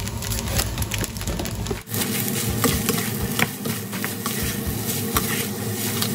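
Egg fried rice being stirred and tossed in a steel pot with a metal spoon: repeated clicks and scrapes of the spoon against the pot, with a light frying sizzle.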